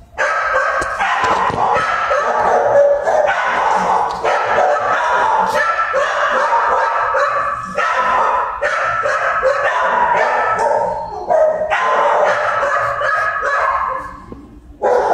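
Many dogs barking and yipping at once in a shelter kennel, an overlapping din with hardly a break that dies down near the end.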